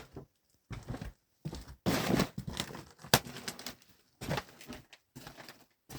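Irregular rustling and scratching in short bursts, with a sharp click about three seconds in.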